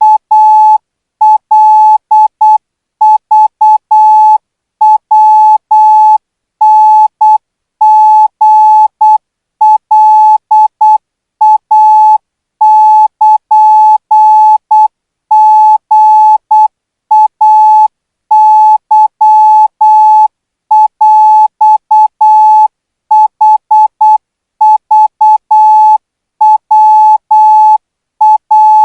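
Morse code practice signal for Thai code: a single steady beep tone keyed on and off in short dots and longer dashes, sent slowly at 12 words per minute.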